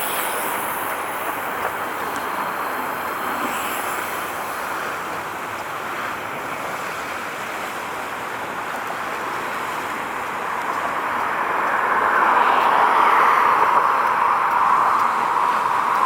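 Steady rushing of passing traffic, swelling louder about twelve seconds in.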